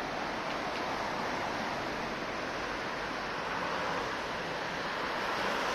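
Steady traffic noise from a busy city street: a continuous rush of passing cars.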